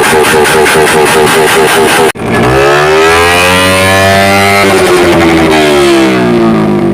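A rapid, even pulsing sound that cuts off abruptly about two seconds in, followed by a motorcycle engine revving, its pitch rising and then falling slowly back down.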